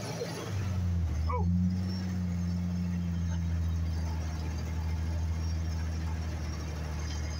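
Dump truck engine running with a steady low drone, rising a little about a second in.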